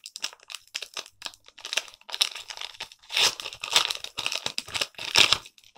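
Foil wrapper of a Pokémon booster pack crinkling as it is handled and torn open, with the loudest crackling about three seconds in and again about five seconds in.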